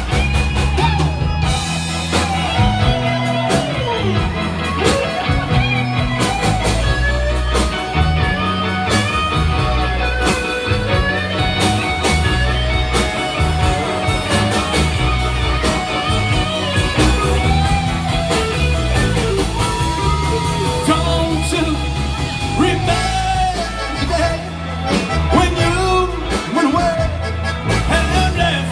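Live Tex-Mex rock band playing an instrumental break: an electric guitar solo with bending notes over bass and drums.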